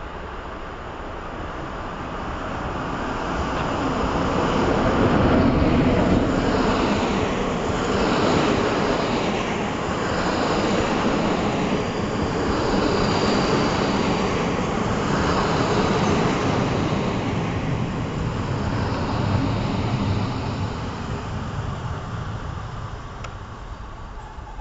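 A PKP EP07 electric locomotive and its passenger coaches rolling past on the near track. The noise builds as the locomotive comes by, swells and dips every couple of seconds as the coaches' wheels run past, and fades near the end as the last coach goes by.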